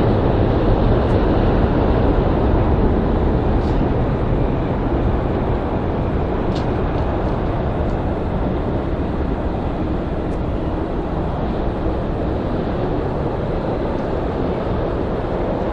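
Jet airliner engine noise at an airport: a steady, broad roar that eases slightly after about six seconds.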